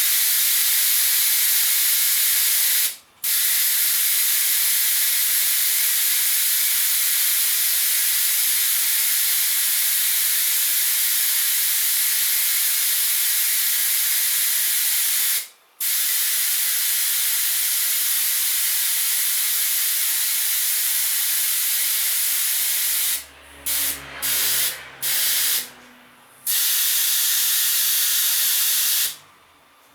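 Loud, continuous hiss of compressed air that cuts off sharply for a moment about three seconds in and again around fifteen seconds, then stops and starts several times near the end.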